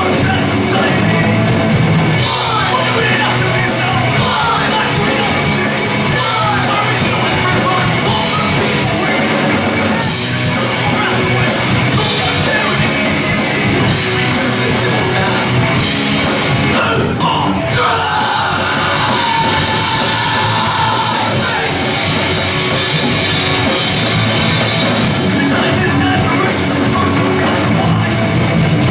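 Punk hardcore band playing live: electric guitar, bass guitar and drum kit at full volume, with a vocalist shouting into the microphone.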